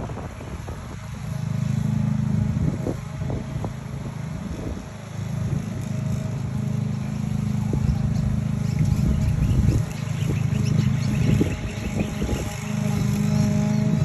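Walk-behind lawn mower engine running steadily while cutting grass, its level rising and falling as it is pushed back and forth.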